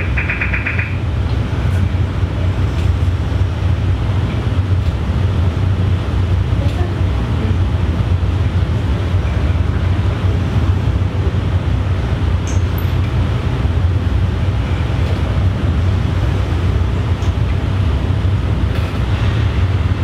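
Steady, loud low rumble with an even hiss over it, running without a break and without rhythm.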